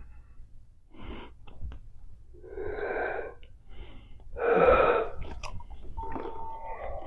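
Close-miked breathy blowing through a wad of bubble gum as a bubble is inflated: two long blows, the second and louder about four and a half seconds in, followed by a few short sharp mouth clicks.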